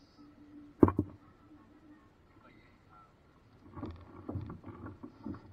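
Two sharp, hollow knocks about a second in, then a run of softer knocks near the end: a paddle striking the hull of a small paddle boat.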